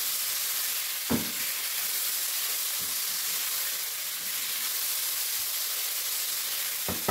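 Spiced boneless chicken pieces sizzling as they fry in a nonstick pan, a steady hiss. The spatula knocks against the pan twice, about a second in and near the end.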